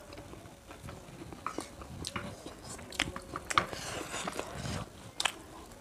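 Two people eating noodles with chopsticks: chewing and slurping, with many scattered sharp clicks and smacks.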